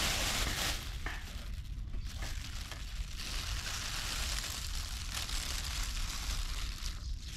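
Thin plastic food bag crinkling as hands open it, then water poured from a stainless steel cup into the bag of karaage flour.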